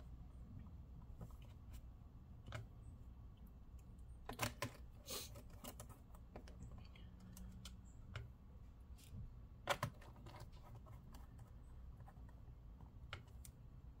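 Faint, scattered plastic clicks and taps, several over a few seconds with two small clusters, as a laptop's plastic bottom cover is pressed into place and handled with a screwdriver.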